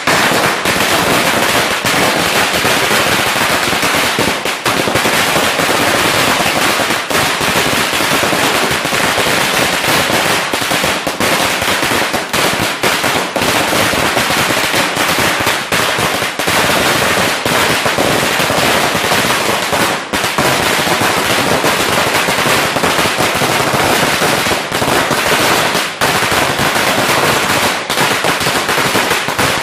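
A Standard Fireworks 3000-shot firecracker string (wala) going off in one unbroken, rapid rattle of small bangs. It starts all at once and keeps up without pause.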